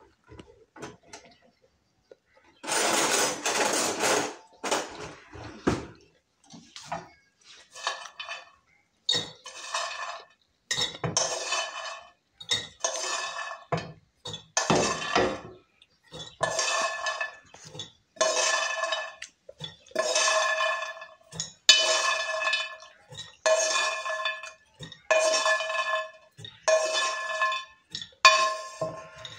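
Roasted groundnuts being scraped out of a metal frying pan with a spoon and clattering into a glass jar. After a longer pour near the start come repeated scraping strokes about every second and a half, each with a metallic ring.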